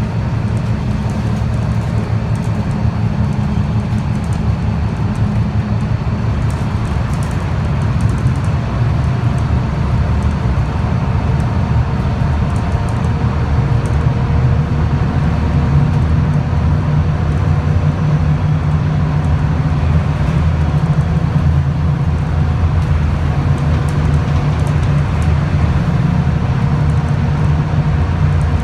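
Scania L94UB CNG bus's gas engine and driveline running on the road, heard from inside the passenger cabin: a steady low rumble with a faint constant whine above it. The rumble changes pitch and grows a little louder about eight seconds in.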